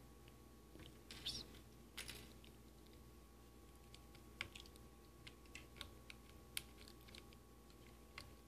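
Scattered small clicks and taps of electronic components and jumper wires being handled and pushed into a plastic solderless breadboard, with a few quick bunches of clicks in the first two seconds and more spread through the rest.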